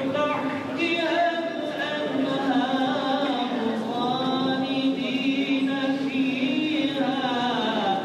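Vocal music: voices chanting in long held notes that glide slowly up and down.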